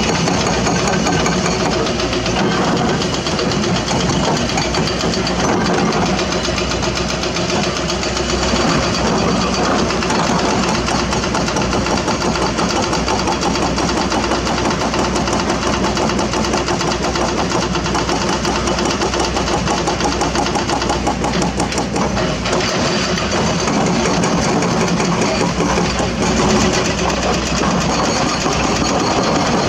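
Heavy diesel engine of an excavator running steadily, with the rapid even throb of its firing.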